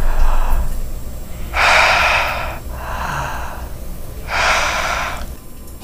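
A person breathing slowly and heavily right at the microphone. Two loud, noisy breaths, about two and a half seconds apart, alternate with softer ones, over a low rumble.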